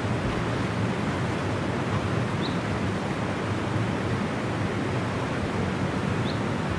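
Steady rush of a waterfall and river rapids, with a few faint, short high chirps.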